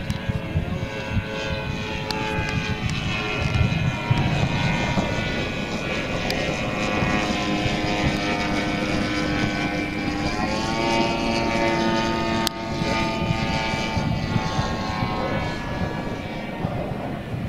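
Propeller and motor of a radio-controlled scale Cessna 150 model in flight, droning steadily with a pitched hum. About ten seconds in the pitch rises and settles higher.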